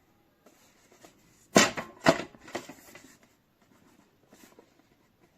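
Handling noises: light rustling and scraping, with two sharp knocks about a second and a half and two seconds in, and a softer one just after.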